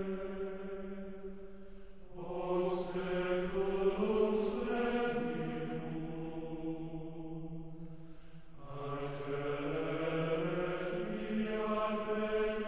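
Slow choral chant: voices holding long notes that step to a new pitch every few seconds, with short lulls about two and eight and a half seconds in.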